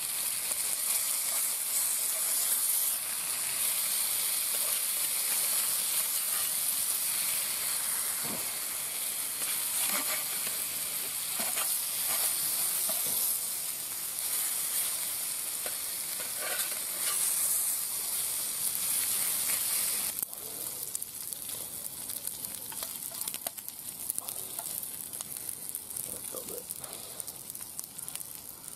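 Bacon rashers sizzling steadily in a frying pan, with a metal spatula scraping the pan as they are turned partway through. The sizzle gets quieter about twenty seconds in.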